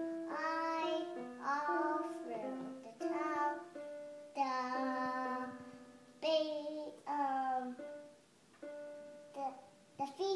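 A young child singing in short phrases while pressing keys on a small electronic toy keyboard, its notes sounding as steady held tones under her voice. The singing drops away briefly near the end before starting again.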